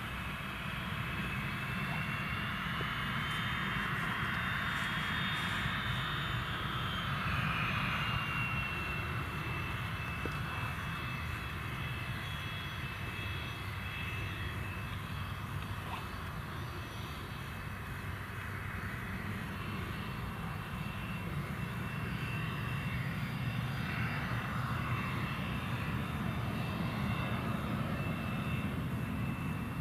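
Twin Williams FJ44 turbofans of a Cessna 525 CitationJet CJ1 running at taxi power: a steady high whine over a low rumble, the whine settling slightly lower in pitch several seconds in.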